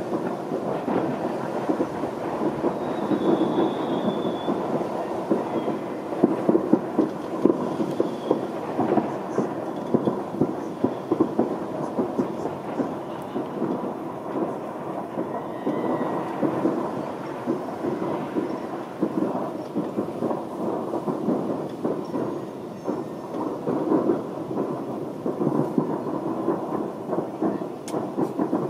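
Distant fireworks going off all at once: a continuous low rumble of many overlapping bangs and crackles, with no gap between them.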